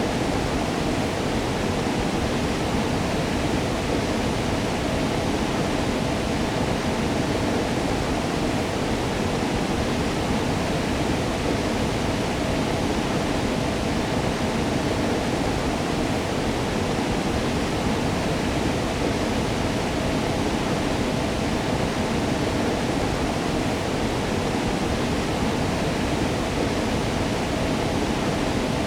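Waterfall: a steady, unbroken rush of falling water, deep and full rather than hissy.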